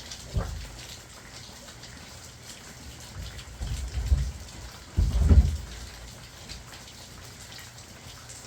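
Steady rain falling, with a few dull low thumps, the loudest about five seconds in.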